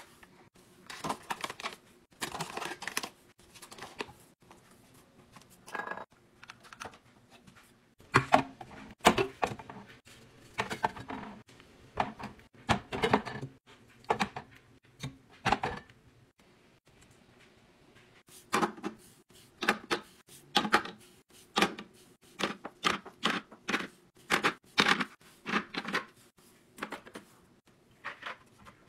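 Bottles and toiletries being set down one by one into clear plastic organizer bins: a run of irregular clicks and taps of plastic and glass bottles against acrylic, with soft packet rustling near the start.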